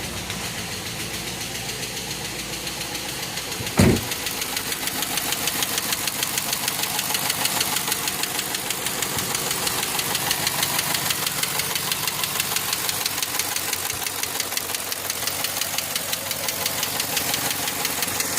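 2013 Chevrolet Caprice PPV's L77 6.0-litre V8 running with a fast, even ticking from the valvetrain, which the owner takes for a failed DOD/AFM lifter. A single thump about four seconds in.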